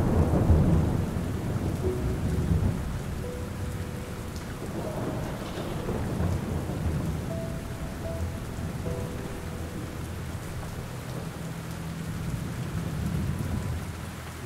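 Steady rain with a rolling thunder rumble that is loudest at the start and dies away over the first few seconds. The rain carries on after it, with faint held tones in the background.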